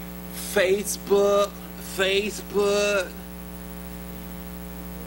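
A man's voice calls out a drawn-out, sing-song two-syllable word twice, each syllable held on a flat pitch, over a steady electrical mains hum.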